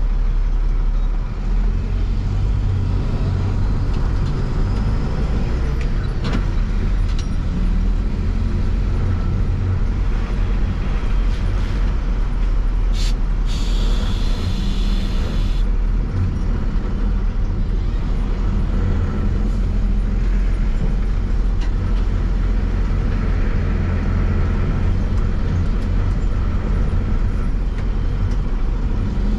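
International truck's engine running on the road while it tows a trailer loaded with a skid steer, with steady engine drone and road noise. A short hiss comes about halfway through.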